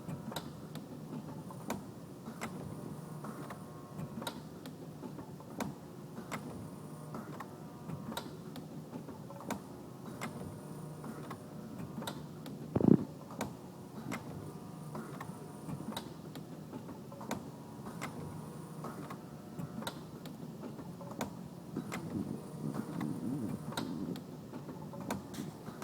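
A forming machine running through its forming process with an abnormal noise: a regular sharp ticking, a little more often than once a second, over a steady machine hum, and one much louder knock about halfway through.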